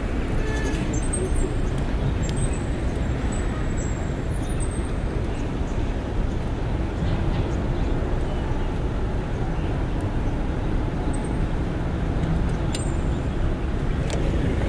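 Steady low rumble of riding a Brompton folding bicycle: tyre and wind noise, with a few faint high chirps.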